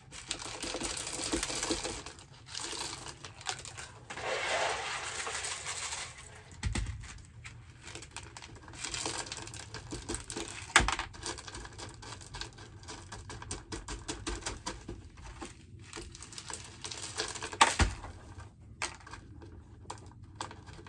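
Leca (expanded clay pebbles) pouring and rattling into a slotted plastic net pot around a plant's roots, in two runs near the start. Scattered clicks follow as the pebbles settle and the pot is handled, with two sharp knocks, the first about halfway through and the second near the end.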